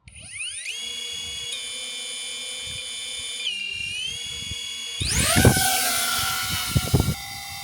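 DJI drone's motors and propellers spinning up with a rising whine and holding a steady high-pitched hum, then throttling up sharply about five seconds in into a much louder rushing drone with a few deep thumps, easing back to a steadier hum near the end.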